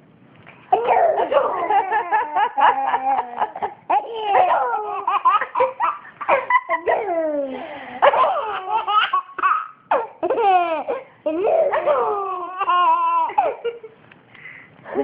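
A baby laughing hard in repeated bouts of belly laughter, rising and falling in pitch. It starts under a second in, breaks briefly between bouts, and dies away near the end.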